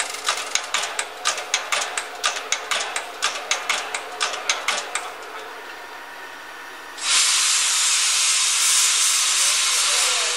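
C58 steam locomotive at a standstill: a quick, even mechanical beat of about three to four pulses a second that dies away about five seconds in, then steam suddenly blasts out in a loud, steady hiss about seven seconds in, easing off near the end.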